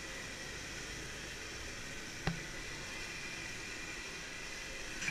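Flour-battered chicken pieces deep-frying in a wok of hot oil, a steady sizzle. One short knock about two seconds in.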